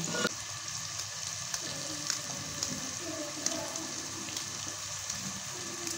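Tomato and spice masala frying in oil in a metal pot, a steady gentle sizzle with a few faint light clicks.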